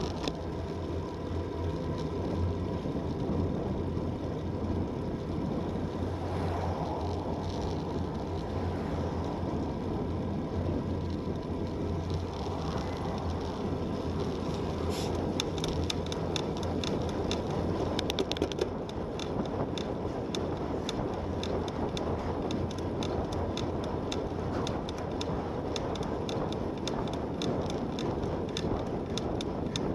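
Road bicycle riding fast on asphalt: steady tyre noise and wind buffeting on a handlebar-mounted camera's microphone. About halfway through, a fast run of light ticks joins in.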